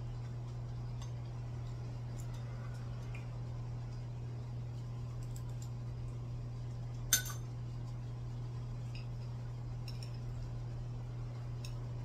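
Spoon and chopsticks lightly clicking against a bowl and plates while eating, with one sharper clink about seven seconds in. A steady low hum runs underneath.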